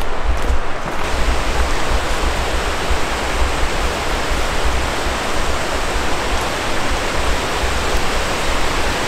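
Steady rush of water pouring over a reservoir dam's spillway, filling in fully about a second in, with an uneven low rumble underneath.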